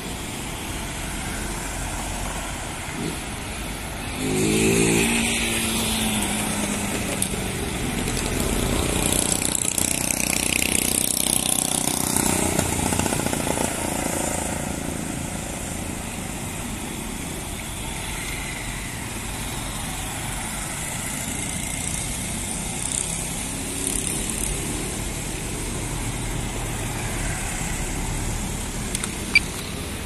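Road traffic noise: a steady outdoor rumble with vehicles passing, a louder one about four seconds in and another swelling and fading between about nine and fourteen seconds.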